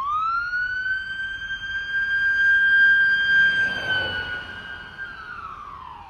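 Ambulance siren wail: the tone rises at the start, holds steady for several seconds, then begins to fall near the end while it fades.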